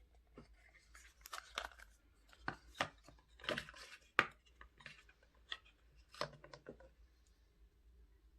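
Earbud packaging being handled and opened: an irregular run of crinkles, tearing and sharp clicks, with the loudest snap just past the middle.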